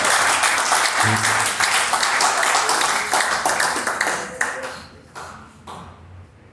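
Congregation applauding at the end of a worship song. The clapping is dense for about four seconds, with a short low note from the band about a second in, then thins to a few scattered claps and dies away about five seconds in.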